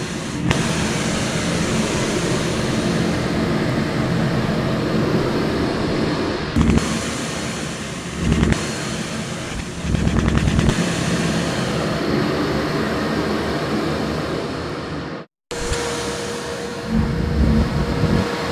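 Shop vac running steadily while sucking up clothes, with low, rough surges several times as fabric is drawn into the hose. The sound cuts out for a moment about fifteen seconds in, then resumes.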